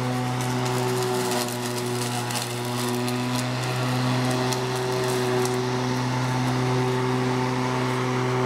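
Black & Decker MM1800 18-inch, 12-amp corded electric lawn mower running while cutting grass: a loud, steady motor hum with scattered ticks during the first few seconds. It cuts off suddenly at the end.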